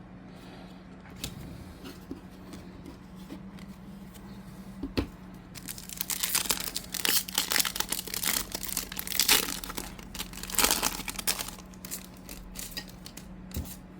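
Trading-card pack wrapper being torn open and crinkled, a dense crackling run from about five seconds in that lasts several seconds, after a few light handling clicks and a knock.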